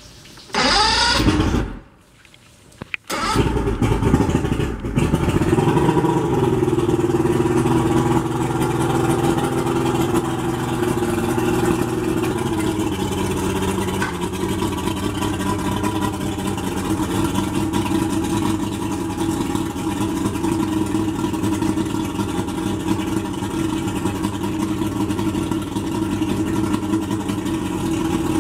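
1998 Mercury 150 hp carbureted V6 two-stroke outboard engine being started with its electric starter: a short burst of cranking, a brief pause, then it catches about three seconds in and runs at a fast idle that settles to a steady, slightly lower idle about halfway through. This is the first start after a new water-pump impeller was fitted, with the engine running on flushing water from a hose.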